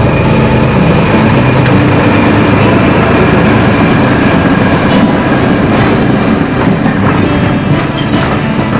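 BR Class 14 diesel-hydraulic locomotive passing close by with a train of coaches, its diesel engine running with a steady drone. From about halfway, the passing coaches' wheels add sharp clicks over the rail joints.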